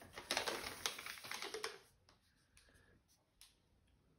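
Rapid crackling and rustling of a diamond painting canvas and its plastic cover film being handled, stopping about two seconds in.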